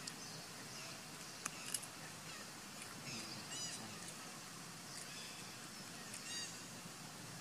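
Faint outdoor background with two short, high-pitched animal calls, about three and a half and six seconds in, and a couple of sharp clicks around one and a half seconds in.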